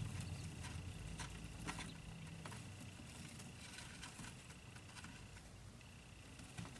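Faint, scattered light taps and scratches of day-old quail chicks moving about, over a steady high whine that breaks off briefly about five and a half seconds in.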